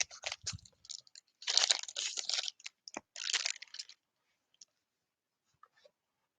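Packaging being opened by hand: crinkling and rustling of the wrapping in bursts, stopping about four seconds in.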